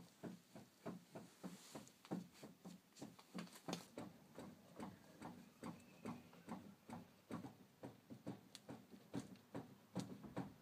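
Faint, regular clicking, about three clicks a second, with no change in pace.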